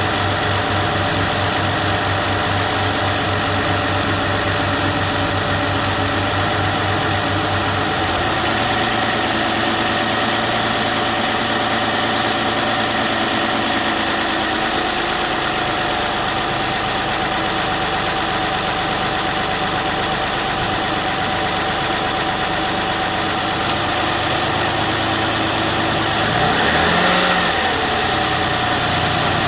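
Toyota RAV4 3.5-litre V6 engine idling with a ticking noise, which the owner notes gets louder after a cold start. The engine note changes about eight seconds in, and there is a brief rise and fall in pitch near the end.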